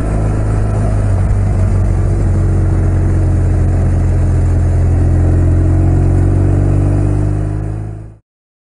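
BMW R 1200 RT's boxer-twin engine running steadily while riding, a low even drone, which fades and cuts off abruptly about eight seconds in.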